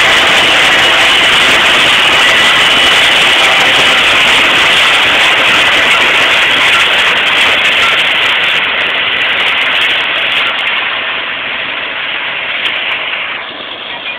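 Tractor engines and a tractor-driven corn picker working through dry standing corn stalks, a loud steady machinery noise. It fades over the last several seconds as the machines move away.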